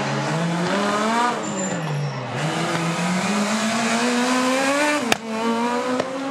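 Rally car engine revving, easing off about a second in, then pulling hard again with a steadily rising pitch. About five seconds in there is a sharp crack as it changes up a gear and the pitch drops.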